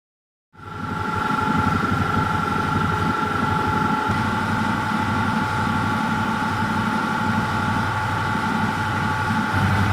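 Grasso V-type reciprocating ammonia compressors running steadily: a low pulsing rumble with a steady high whine over it, coming in about half a second in.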